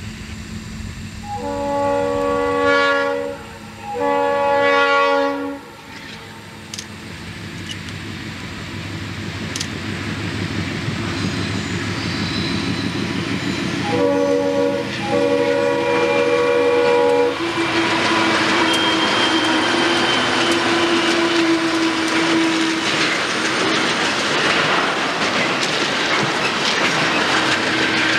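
Conrail diesel freight locomotives working hard as they approach. The air horn sounds two long blasts, then a short and a long one, the grade-crossing pattern. From about seventeen seconds in the locomotives pass close and their sound swells, then the intermodal flatcars clatter by over the rail joints.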